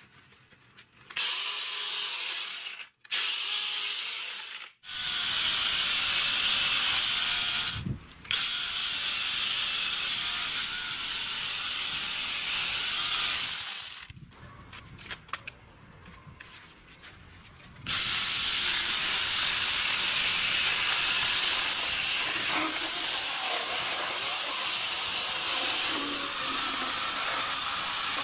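Angle grinder driving a homemade chainsaw bar and chain at full speed, cutting into a tree trunk's bark and wood. It is a steady high whine that stops abruptly several times, with a quieter stretch of scattered clicks partway through before it runs on steadily.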